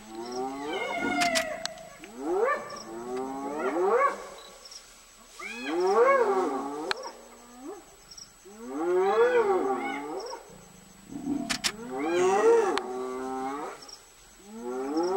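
Spotted hyenas calling near a lion kill: a string of pitched cries, each rising and then falling over about a second, repeating every couple of seconds.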